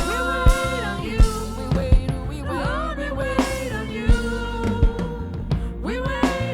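Live worship band music: a slow, steady drum-kit beat under sustained keyboard chords, with a voice singing a wordless run about two and a half seconds in.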